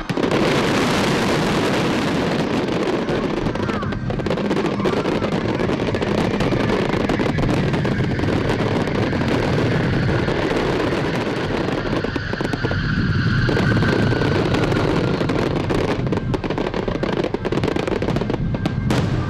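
Large fireworks display: a dense, unbroken barrage of shell bursts and crackling.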